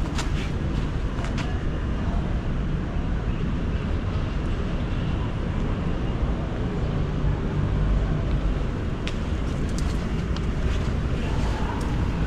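Outdoor street ambience: a steady low rumble, swelling a little about eight seconds in, with a few faint clicks.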